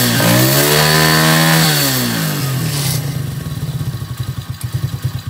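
A 125 cc ATV's single-cylinder four-stroke engine is revved up once and falls back over about two seconds, then settles into an uneven, pulsing idle. The carburetor's mixture screw is set one and a half turns out, which the mechanic judges not right.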